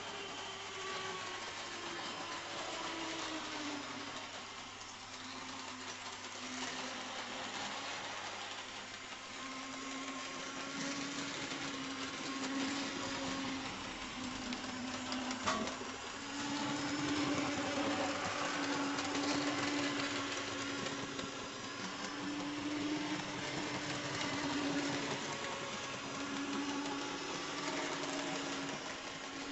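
Model railway tank locomotive running around the layout with a short train of wagons: its small electric motor whines, the pitch wavering up and down with speed, over the running noise of wheels on the track. One sharp click about halfway through.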